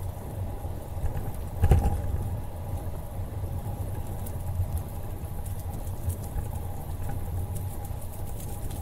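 Wind rumbling on the microphone of a camera riding along on a bicycle, mixed with tyre and road noise and a faint steady hum. A single bump jolts through about two seconds in.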